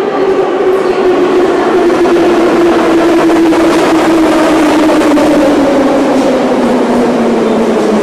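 Moscow Metro train running loudly into the station, its motor whine falling steadily in pitch as it slows, over a constant rumble of wheels.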